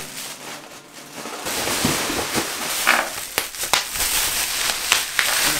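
Plastic bubble wrap being squeezed and crumpled in the hands. From about a second and a half in, its bubbles pop in a rapid run of sharp crackling pops.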